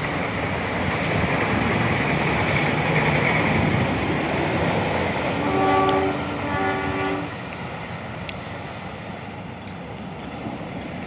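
A heavy vehicle passing close by, its engine and tyres loud, gives two blasts of a train-like air horn about five and a half seconds in. The noise drops away right after the second blast.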